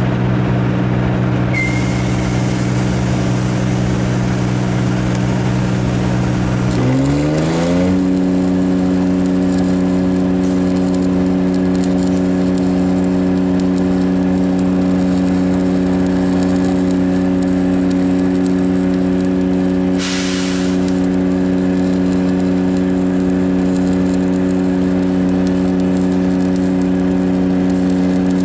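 Engine-driven welder's engine running steadily, then speeding up about seven seconds in and holding the higher speed, as such welders do when they come off idle as the arc is struck.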